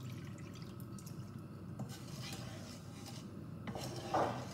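A wooden spatula stirring and scraping through sugar and water in a nonstick frying pan as water is poured in, with light liquid sloshing and a brief louder sound near the end. This is sugar being dissolved in water to start a sugar syrup.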